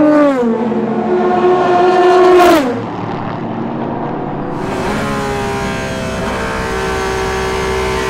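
Racing prototype engines running hard, then downshifting: the engine note drops in pitch in two steps, about half a second and about two and a half seconds in, and then settles to a quieter steady note. From about five seconds in, a GT race car's engine is heard from inside its cockpit, holding a steady note with a hiss of wind and road noise.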